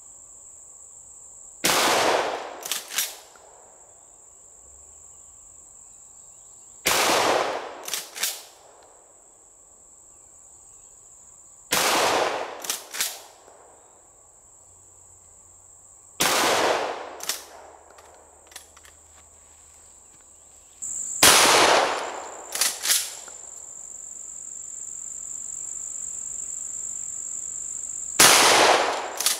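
Franchi SPAS-12 12-gauge shotgun fired six times in pump-action mode, about one shot every five seconds, each shot followed by the two clacks of the pump being racked back and forward. A steady high insect buzz runs underneath.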